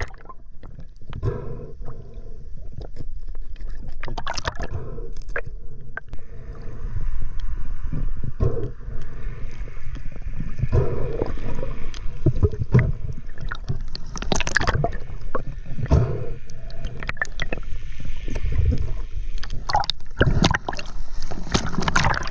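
Muffled water sound through an underwater camera housing: gurgling and sloshing with irregular knocks and thumps as the diver moves. It breaks the surface with a burst of splashing and bubbles near the end.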